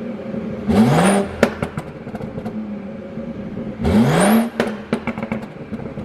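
BMW G30 540i's turbocharged 3.0-litre inline-six idling and blipped twice, each quick rise in revs followed by a scatter of sharp pops and crackles from the exhaust on the overrun, the sign of a tune set up to make exhaust pops.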